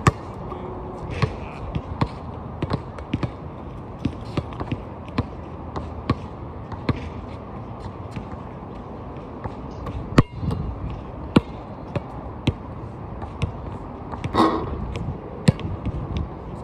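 Basketballs bouncing on an outdoor court: irregular dribbles and thuds, with a louder bang about ten seconds in and a brief louder noise near the end, over steady low background noise.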